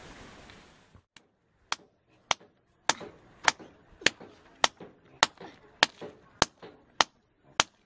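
A hand-held stone pounding dried corn kernels in a bowl, crushing them by hand: about eleven sharp knocks in a steady rhythm, a little under two per second, starting just under two seconds in.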